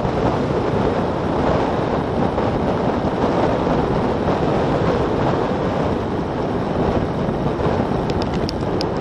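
Wind buffeting the microphone of a bike-mounted action camera on a fast road-bike descent at about 28 mph while coasting, a loud steady rush. A few faint high ticks come in near the end.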